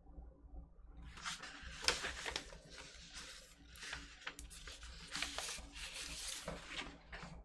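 A white paper record inner sleeve rustling and crinkling as it is handled and pulled open to take out a vinyl LP, with many sharp crackles. It starts about a second in.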